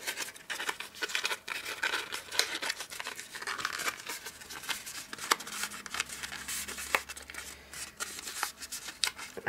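Stiff black cardstock of a pillow box rustling, crackling and clicking as its curved end flaps are pressed and folded closed by hand, in irregular sharp snaps.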